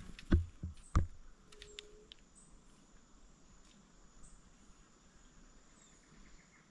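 Two dull thumps in quick succession, about a third of a second and a second in. Under them, insects keep up a steady, faint, high-pitched buzzing.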